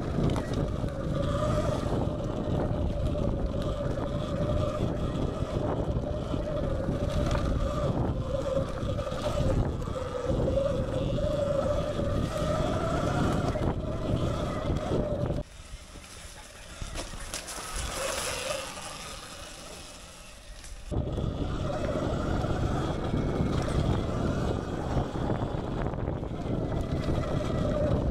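Sur-Ron Light Bee X electric dirt bike riding hard on a dirt trail: a steady motor and drivetrain whine that rises and dips with speed, over wind buffeting on the microphone and tyre rumble. Just past halfway it goes much quieter for about five seconds, then the whine and rumble come back.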